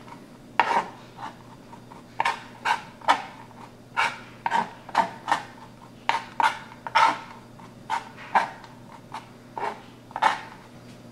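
Kitchen knife chopping and scraping on a plastic cutting board, mixing shaved white chocolate with chili and nutmeg: irregular taps and short scrapes, about two a second.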